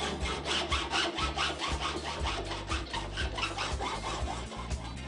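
A metal saw cutting through corrugated copper-tube coaxial cable with foam dielectric, in rhythmic back-and-forth strokes. This is the square cut of the cable end in a corrugation trough.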